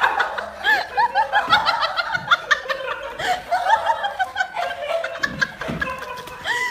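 Several people laughing and giggling, with many quick high-pitched laughs overlapping.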